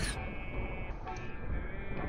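The last of a firecracker blast dies away right at the start, followed by faint background music with steady held notes.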